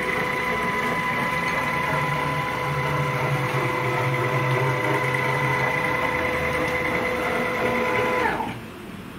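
Stepper motors driving a screw-driven CNC router gantry through a 500 mm rapid move: a steady whine in several even tones that dips slightly and stops about eight and a half seconds in.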